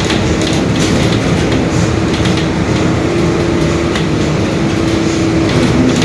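Mercedes-Benz OF-1721 Bluetec 5 bus running, a heavy low rumble with scattered rattles and a steady whine from the differential that steps up slightly in pitch about halfway and drops lower near the end. The whine is the differential growl ("diferencial roncando") that marks this bus's drivetrain as noisy.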